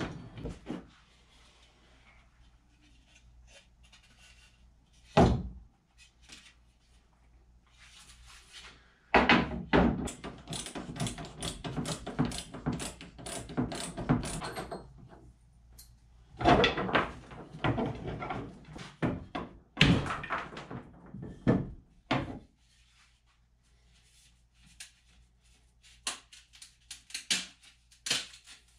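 Knocks and clattering of wooden canoe seat frames and their mounting hardware being worked loose and handled. There are two long runs of dense rattling in the middle and a few sharp knocks near the end.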